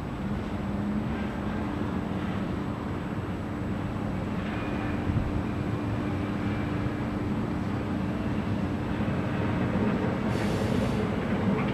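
Container freight train hauled by electric locomotives rolling slowly around a curve: a steady rumble and hum from the wagons and locomotives, with a faint high squeal in the middle and a short hiss about ten seconds in.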